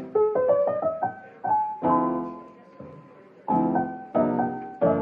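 Background piano music: a melody of single notes and chords, each struck and ringing out as it fades.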